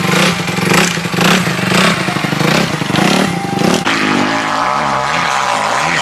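Motocross bikes running on the track, engines revving up and down. A steady engine note fills the first few seconds; from about four seconds in the pitch rises and falls repeatedly as the bikes work the throttle.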